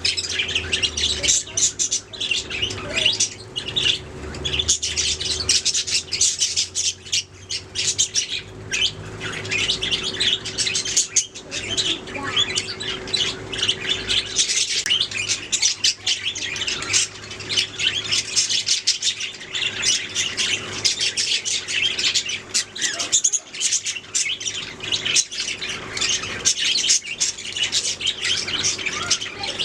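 Several budgerigars chirping and chattering nonstop, a dense stream of warbling, squawky calls, with a steady hum underneath.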